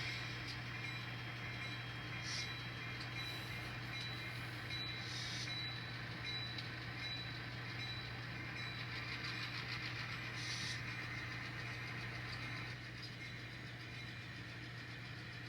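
N scale model locomotives running along the layout track: a steady motor hum with a few faint clicks, dropping slightly in level near the end.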